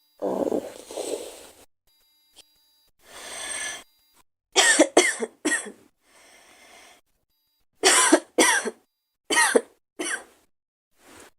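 A girl in a coughing fit: one long rough cough, a breath drawn in, then short sharp coughs in quick runs of three, two and two.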